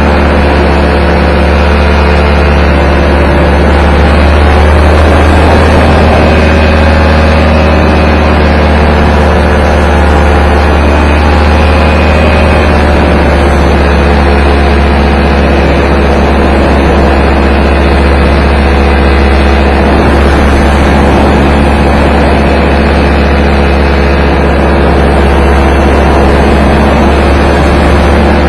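Paramotor engine running at a steady speed, with heavy wind rumble on the microphone.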